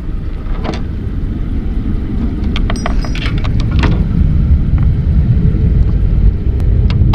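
Wind buffeting the action camera's microphone: a low, uneven rumble that grows louder in the second half. A few light clicks of handling come around the middle.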